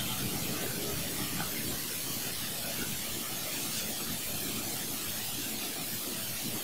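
Low, steady hiss of background noise with no distinct sounds standing out.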